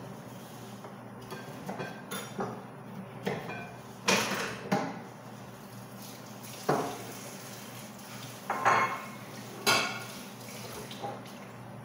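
Kitchenware being handled: pots, dishes and utensils knocked together in an irregular series of about a dozen clinks and knocks, the loudest about four, nine and ten seconds in.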